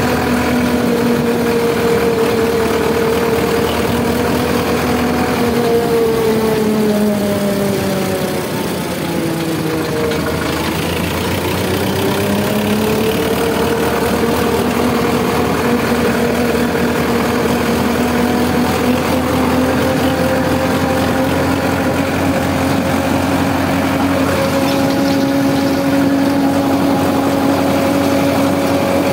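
Sonalika 745 tractor's three-cylinder diesel engine running while driving. About eight seconds in the revs drop for a couple of seconds, then climb back and hold a steady pace.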